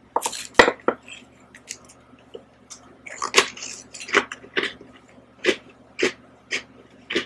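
Eating sounds: a metal spoon scooping soft ice cream with a few sharp clicks in the first second, then wet mouth smacks about twice a second as the ice cream is taken off the spoon and chewed.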